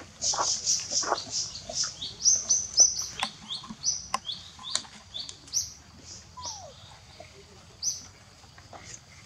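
High-pitched animal calls: a quick run of short, squeaky chirping notes, each slightly falling in pitch, crowded together for the first five seconds or so and then coming only now and then.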